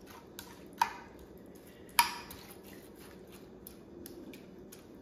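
A metal spoon spreading wet soup mixture over rice in a glass baking dish: two sharp clinks of spoon on glass, about one and two seconds in, then fainter ticks and soft wet squishing.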